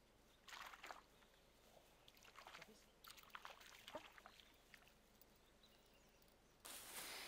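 Near silence broken by a few short bursts of rustling in shore grass, with small clicks and scrapes in the middle and the loudest rustle near the end.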